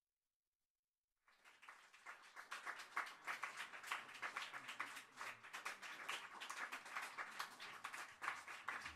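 Audience applauding, starting suddenly about a second in after silence and going on steadily.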